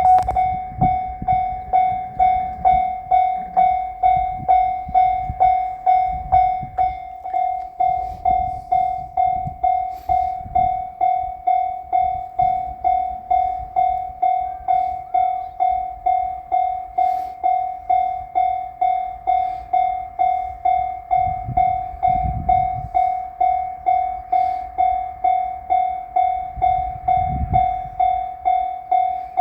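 Japanese level-crossing warning bell ringing its electronic 'kan-kan' tone in a steady, even rhythm, the signal that a train is approaching. Two low rumbles rise under it in the second half.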